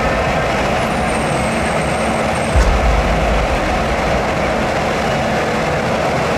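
Ecolog forestry harvesters running with a steady diesel drone. A thin high whine sounds for about a second and a half starting about a second in, and the low rumble rises briefly about two and a half seconds in as a crane moves.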